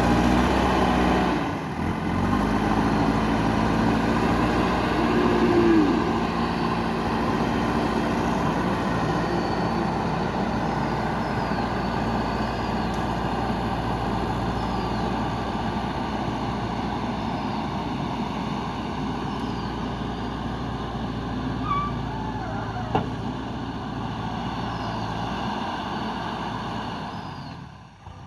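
JCB 3DX backhoe loader's diesel engine running steadily while levelling ground, the revs rising briefly and falling back about five seconds in.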